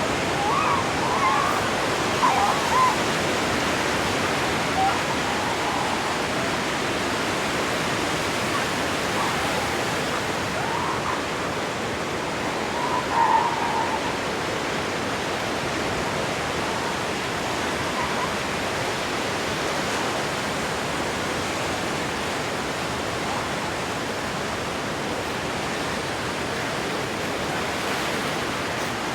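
Steady wash of surf on a beach, with seals calling now and then over it: several short wavering calls in the first three seconds, a louder one about 13 seconds in, and a few fainter ones between.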